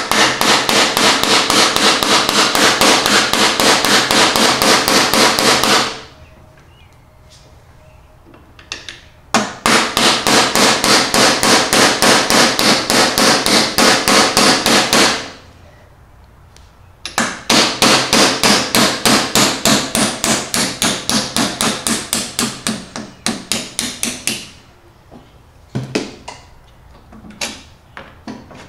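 Hammer driving a roll pin out of a riding mower's steering shaft: quick, sharp blows at about four a second, in three runs of several seconds each with short pauses between, and a few single taps near the end.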